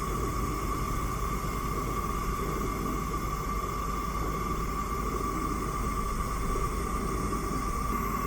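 Lit gas stove burner flame burning steadily: an even rush of hiss and low rumble with a faint steady tone in the middle.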